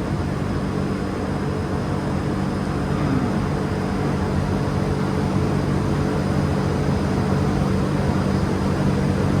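Potato store ventilation fans running at full speed, a steady hum with a rush of air, cooling the stored crop.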